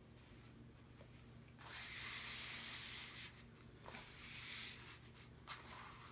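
Diamond-painting canvas panels rustling and sliding as they are handled and laid out. One long rustle starts about a second and a half in, followed by a few shorter ones.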